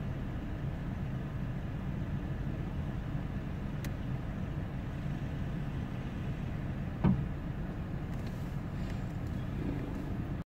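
Car engine idling steadily, heard from inside the cabin, with a single short knock about seven seconds in.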